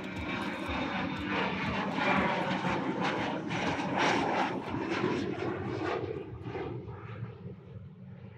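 Airplane engine sound effect: a steady noisy rush with humming tones that builds to its loudest around the middle and fades away near the end.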